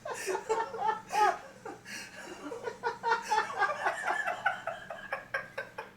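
People laughing hard in short, breathy bursts that run on without stopping.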